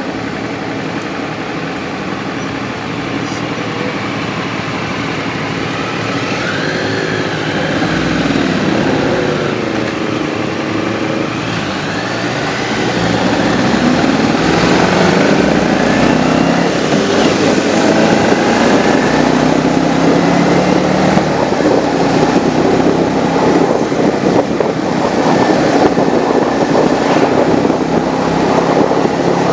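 Motorcycle engine heard from a camera mounted on the bike, pulling away at low speed with its pitch rising and falling through the gears. About halfway through it gets louder and wind and road noise thicken as the bike picks up speed.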